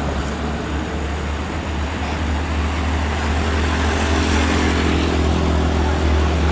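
A heavy truck engine running steadily, a constant low rumble under broad roadside noise.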